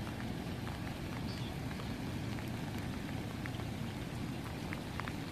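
Steady rain falling, a constant low rush with scattered drops ticking close by.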